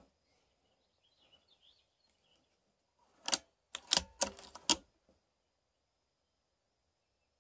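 A quick series of five or six sharp clicks and knocks over about a second and a half, a little past the middle, with a few faint high chirps earlier.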